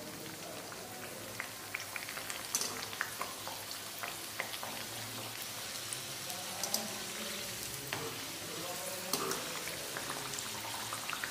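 Chicken samosa deep-frying in hot oil in a steel wok: a steady sizzle with frequent crackling pops.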